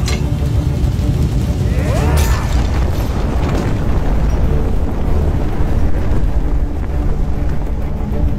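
Film soundtrack: a deep, continuous booming rumble under dramatic music, with a sharp hit at the start and a rising sweep about two seconds in.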